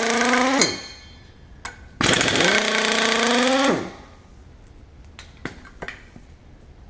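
Impact wrench hammering bolts loose in two bursts. The first burst ends about half a second in; the second lasts nearly two seconds from about two seconds in. Each time the pitch rises a little, then drops as the trigger is let go. Light clicks and knocks of parts follow.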